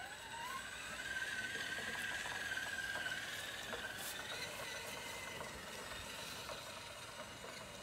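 Electric drive motor and gearbox of an Element RC Enduro Sendero 1/10-scale trail truck whining as it drives over grass. The whine rises in pitch in the first second as the truck speeds up, holds steady, then fades as it drives off.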